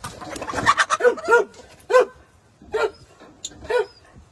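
An animal giving a series of short, sharp calls, about one a second, after a busier flurry of calls in the first second.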